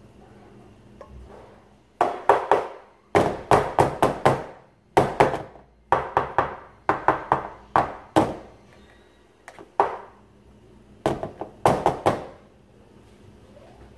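A metal loaf pan full of cake batter being rapped down on a tabletop again and again, to settle the batter. The knocks come in quick bursts of two to six, each with a short ringing tail.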